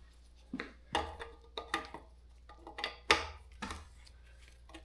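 Small metal bicycle parts and tools clinking and knocking as they are handled, a handful of separate sharp clicks, the loudest about three seconds in.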